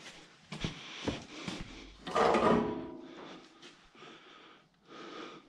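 Steel parts being handled and shifted: a few light knocks, then a louder scrape with some ringing about two seconds in that fades away.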